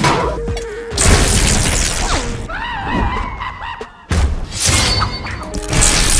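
Cartoon film soundtrack: music mixed with loud crashing and shattering hits, the heaviest starting about a second in and again about four seconds in, with short gliding cartoon sound effects between them.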